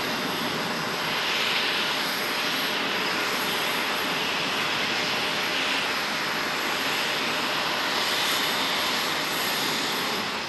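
Jet engines of a Boeing 737-800, its CFM56-7B turbofans, running with a steady, even rushing roar and a thin high whine over it.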